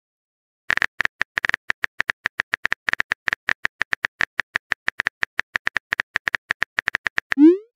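Simulated phone keyboard clicks: a rapid, even run of short taps, several a second, as a text message is typed. Near the end, a short rising whoosh as the message is sent.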